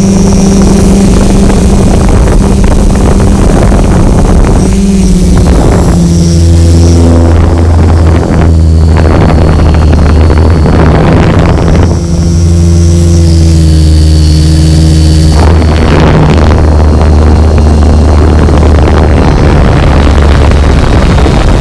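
A hexacopter's six electric motors and propellers running at full throttle, heard from the camera mounted on the craft: a loud, steady buzzing drone over a rushing hiss. The pitch shifts a few times as the throttle changes.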